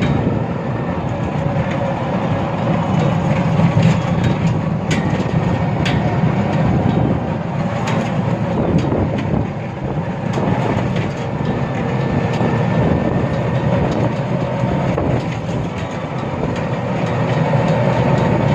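Steady rumble of a vehicle moving along a road, heard from on board: engine and road noise with rattling and a few sharp knocks.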